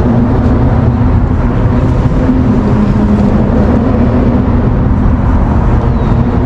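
A steady, loud motor drone with a low rumble under it: some engine running continuously.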